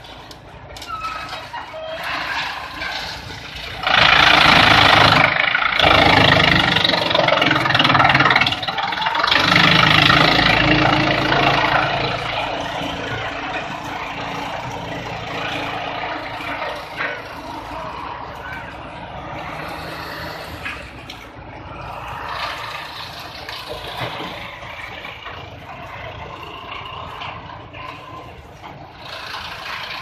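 Industrial wood chipper running with a steady hum and chewing through branches fed in on its conveyor, with loud grinding and crackling from about four seconds in to around twelve seconds, then steadier, lower chipping.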